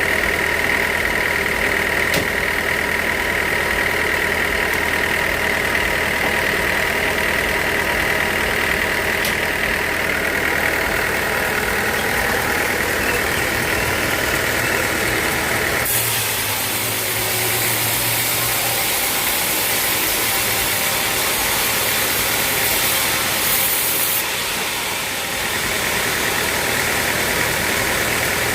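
Sawmill machinery running steadily with a constant hum. A bit past halfway the low hum drops away and a hissing rises for several seconds, then the earlier steady sound returns a few seconds before the end.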